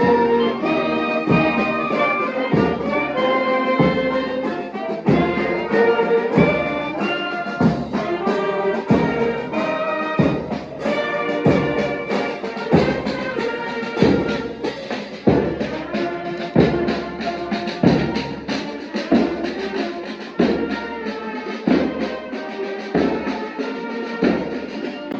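Brass band playing a march: trumpets and trombones carry the tune in held notes over a steady, even drum beat.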